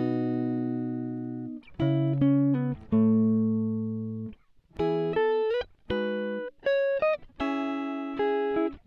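Background instrumental music: plucked notes and chords that ring out and fade, in short phrases with brief gaps between them.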